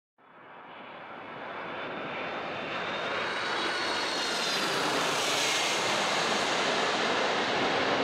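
Boeing 767-300 airliner's twin jet engines on final approach, growing steadily louder as it comes in low overhead: a broad rushing roar with a faint high whine that dips slightly in pitch as it nears.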